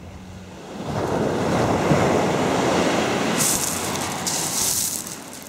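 Small waves breaking and washing up a shingle beach. The surf swells about a second in and fades near the end, with a hiss in the second half.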